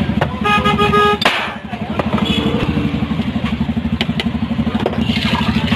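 An engine idles nearby with a steady, fast low putter. A vehicle horn sounds briefly about half a second in, and a couple of sharp clinks come about four seconds in as a glass soda bottle is handled.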